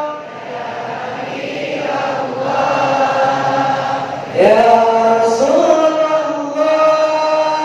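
A group chanting Arabic salawat, a devotional blessing on the Prophet, in long drawn-out notes. About four seconds in the pitch glides up and the chant gets louder.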